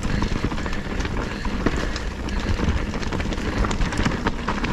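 Mountain bike riding a dirt trail: the tyres roll with a steady rumble and the bike gives frequent small rattles and clicks, with wind on the microphone.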